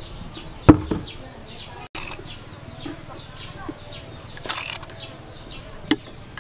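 A metal spoon knocking sharply once, about a second in, with lighter knocks and scrapes as sugar is spooned over sliced sea snail meat in a plastic bowl. Faint high chirps sound throughout.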